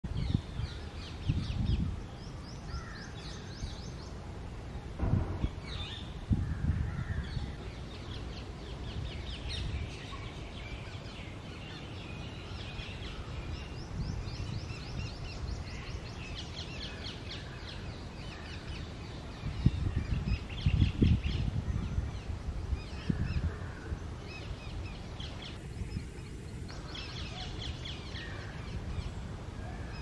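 Rose-ringed (Indian ringneck) parakeets calling at a tree nest hole: repeated rapid trains of short, harsh, high chattering calls. Bursts of low rumble come and go, loudest about twenty seconds in.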